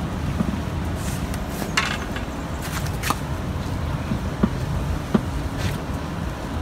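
Steady low outdoor background noise, with a few faint scattered clicks and scrapes.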